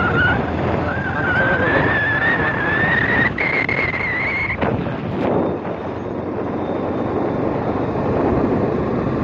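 Motorcycle on the move, with wind rushing over the microphone. The engine's whine rises steadily in pitch over the first few seconds as the bike speeds up, holds briefly, then sinks into the wind noise.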